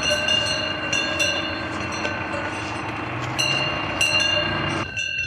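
Cowbells on a herd of cows walking past: many bells ringing and clanking together in a continuous jangle, with repeated sharp strikes. The jangle thins out abruptly near the end.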